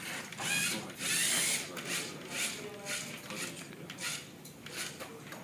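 Small wheeled robot's gear motors whirring in short stop-start bursts, about two a second, the longest and loudest about a second in, as it is driven by remote control.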